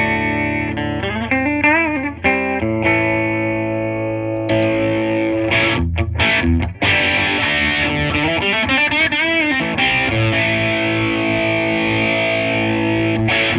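Gibson Les Paul electric guitar played through a Fender Blackface-style tube amp: clean sustained notes with string bends and vibrato. About four seconds in, the tone turns thick and distorted, typical of the Crunchbox distortion pedal being switched on, and the playing carries on with more bends.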